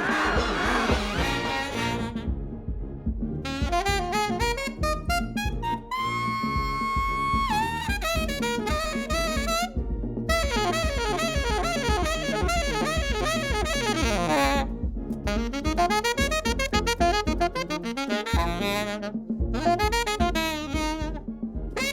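Jazz saxophone playing a melody of quick runs and sliding phrases, with a long held note about six seconds in, over a steady low accompaniment.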